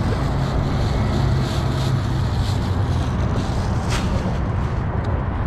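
Steady low rumble of road traffic on the highway overpass, mixed with wind noise on the microphone.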